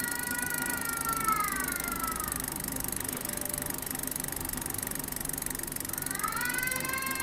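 Ratchet buzz of a Novatech D762TSBT rear freehub as the spun wheel coasts, its pitch falling and fading over the first two seconds or so as the wheel slows. About six seconds in, a second buzz starts, rising quickly and then holding a steady pitch.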